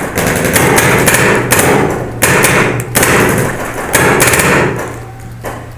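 First Strike T15 paintball marker firing on full auto in about six rapid bursts, each under a second long. The bursts stop near the end.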